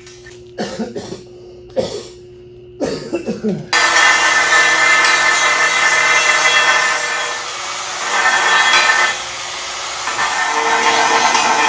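A few short sharp sounds, then from about four seconds in a loud, steady, rattling whir that starts abruptly: the old film projector sound effect that goes with a countdown-leader transition.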